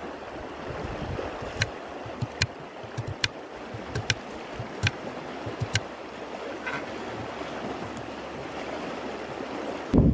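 Knife slicing through an onion on a wooden cutting board, the blade tapping sharply on the board several times about a second apart, over the steady rush of a flowing river.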